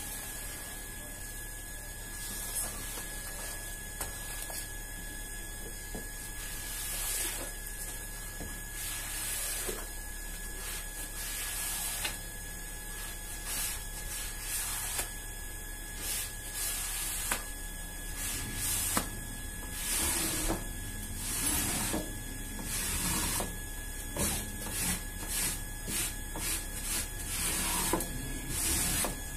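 Rubber floor squeegee pushed through soapy water over a wet rug and floor: a series of wet swishing scrapes, sparse at first and about one a second in the last third. A steady electrical hum runs underneath.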